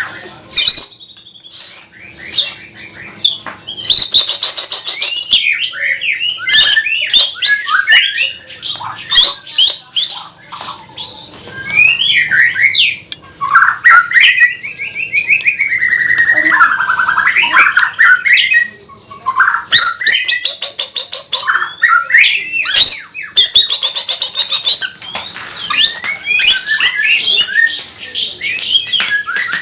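White-rumped shama (murai batu) singing loudly and without pause, in full song: swooping whistled phrases that glide up and down, mixed with several fast, harsh rattling 'cekrek' chatters. The full song is taken as a sign the bird has recovered from its cough.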